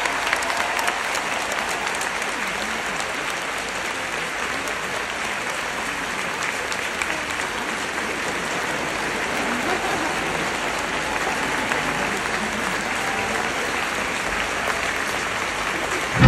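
Large stadium crowd applauding, a dense, even clapping that holds steady.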